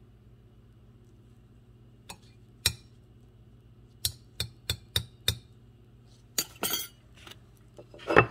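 A metal spoon clinking against a cooking pot and glassware: two taps, then a run of five quick taps at about three a second, a short rattle, and the loudest clink near the end.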